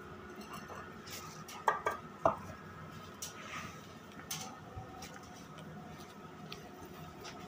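A few light clinks and knocks of dishes and utensils being handled, the loudest about two seconds in, over a faint steady background hum.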